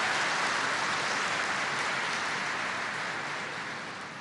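A large audience applauding steadily, fading away near the end.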